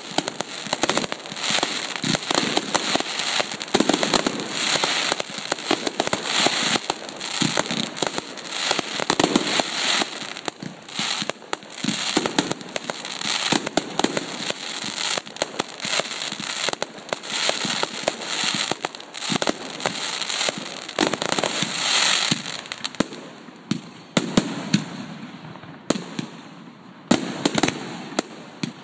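Fireworks display: a rapid, continuous barrage of aerial shell bursts and crackling stars, thinning to scattered bangs over the last few seconds.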